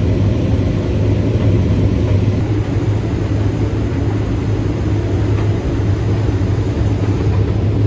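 Heavy harvest machinery running steadily with a low, even engine drone while high-moisture corn is being unloaded.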